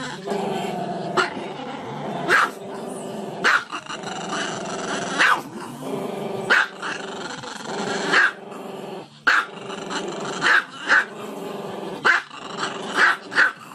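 Small dog growling continuously with its head raised, broken by about a dozen short, sharp barks at irregular intervals.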